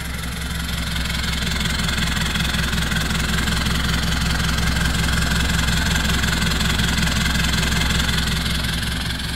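Mitsubishi Montero Sport turbodiesel idling steadily, heard at the tailpipe of a straight-through exhaust with the muffler deleted and a Borla tip fitted.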